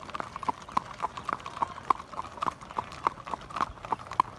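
Horses' hooves clip-clopping on a paved road: a steady run of sharp hoof strikes, about three to four a second.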